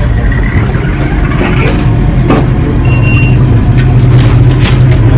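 Steady low hum inside a train carriage, growing louder in the second half, with a few light knocks and a short high electronic beep about three seconds in.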